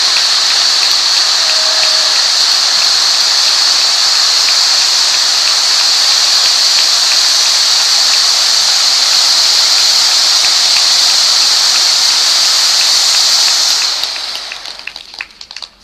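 Several ground-mounted cold spark fountains burning with a loud, steady hiss and a faint crackle of sparks. About 14 seconds in the hiss dies away quickly as they burn out, leaving scattered crackles.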